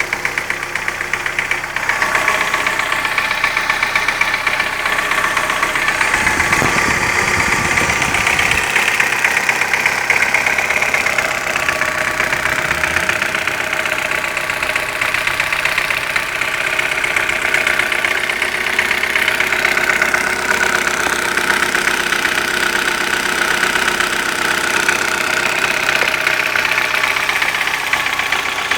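Car engine running with a light, rapid tapping from the valve train. The owner says the tap appeared after the hydraulic lifters were replaced and is not there when the engine is cold.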